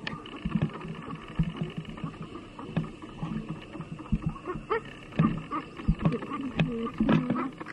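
Newborn puppies whimpering and squeaking in short, wavering cries, mixed with irregular soft knocks and rustling as they crawl over the grass. A faint steady background hum runs underneath.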